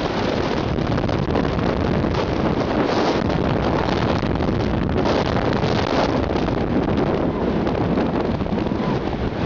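A steady, loud rush of wind buffeting the camera microphone, mixed with the hiss of a snow tube sliding fast down a packed-snow run.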